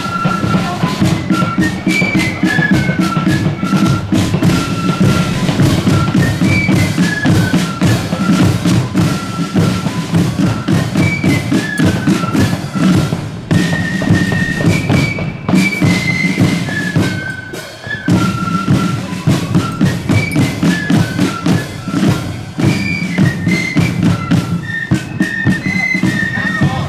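Marching flute band playing a tune: flutes carry the melody over rapid snare-drum rolls and bass-drum beats. The drumming dips briefly about eighteen seconds in while the flutes play on.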